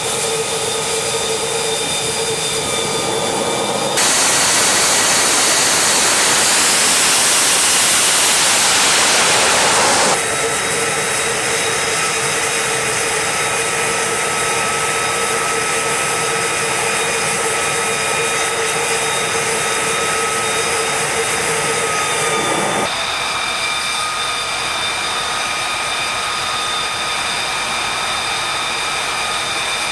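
F-35B Lightning II's F135 jet engine running on a carrier deck: a steady loud rush with several high whining tones. The sound grows louder and brighter from about 4 to 10 seconds in, with one tone rising, and changes abruptly again about 23 seconds in.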